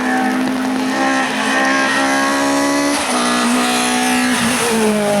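Race car engine at full throttle on a hill-climb course, running steadily at high revs. Its pitch drops twice, about three seconds in and again near the end, as it changes up a gear.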